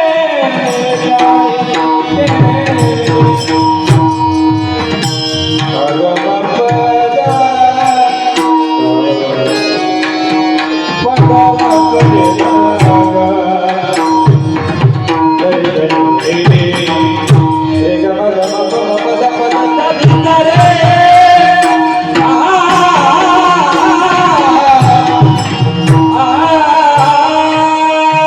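Devotional kirtan music: tabla played in a busy running rhythm under steady held notes, with a voice singing over them.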